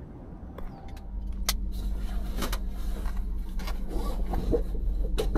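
A car engine comes on about a second in and runs as a steady low hum that slowly grows louder, with a few sharp clicks and rattles over it.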